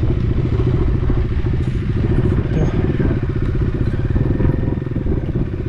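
Motorcycle engine running steadily with a rapid, even beat, ridden down a steep mountain descent.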